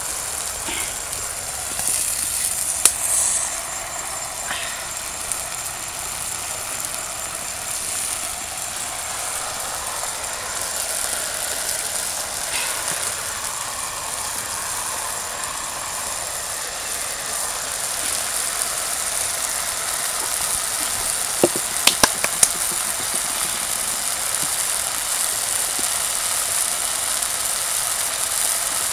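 Steady outdoor background hiss with an even high-pitched band, broken by a few sharp clicks and taps about three seconds in and again about two-thirds of the way through.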